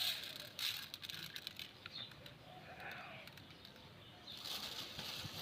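Pearl millet grain being poured and scattered out for birds: a dry rustling hiss with many scattered light ticks of grains landing.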